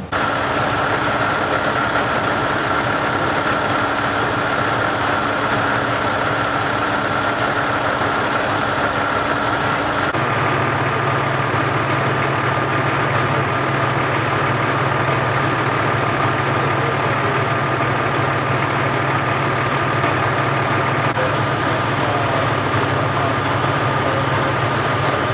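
Heavy emergency-vehicle engines idling at close range: a steady drone with a thin, steady high whine. About ten seconds in the sound shifts to a deeper, heavier idle with a slightly lower whine.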